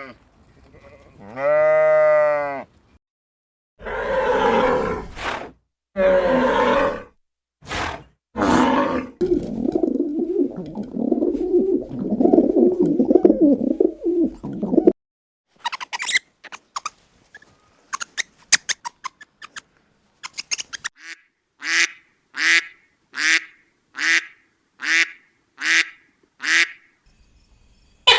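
A string of farm animal sounds, as if from several separate clips. A drawn-out pitched call is followed by several loud harsh calls, then a stretch of rough continuous sound and a scatter of clicks. Near the end come about nine short pitched calls, nearly two a second.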